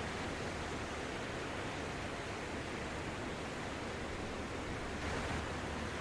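Sea waves breaking and washing up a sandy beach: a steady rush of surf that swells briefly about five seconds in.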